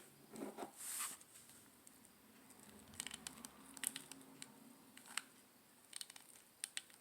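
Hands handling crunchy cheese-puff snacks while building a casting pattern: a brief rustle near the start, then a scatter of small dry clicks and crinkles, with a faint low hum in the middle.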